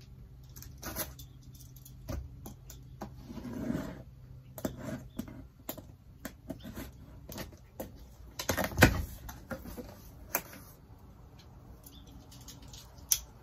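Cardboard box being opened by hand: irregular scratching, rustling and sharp clicks of tape and flaps, with the loudest crackle about nine seconds in.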